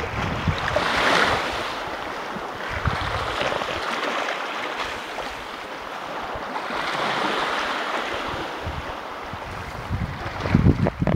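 Small waves lapping and washing on a gravelly shore, the hiss swelling about a second in and again around the middle, with wind buffeting the microphone in low rumbles, strongest near the end.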